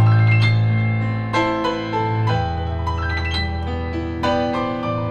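Electric keyboard played with a piano sound: an instrumental passage of chords over held low bass notes, the harmony changing every second or two.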